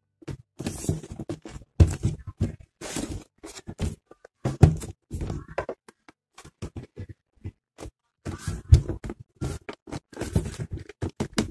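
Cardboard action-figure box being handled while its snug outer cover is worked off: an irregular string of knocks, thunks and scraping of cardboard.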